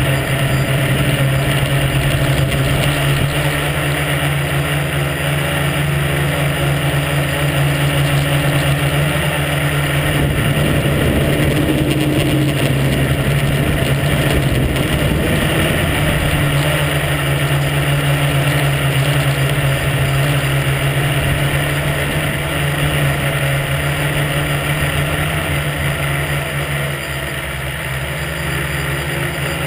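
Tricopter's electric motors and propellers buzzing steadily, heard up close from a camera mounted on the craft. The hum turns rougher and less even for several seconds near the middle, then settles again.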